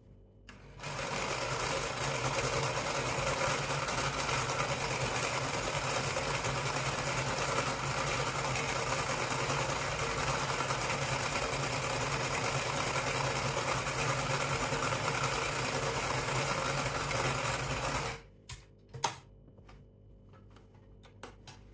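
Electric domestic sewing machine running steadily as it stitches hessian, starting about a second in and stopping suddenly a few seconds before the end, followed by a few faint clicks.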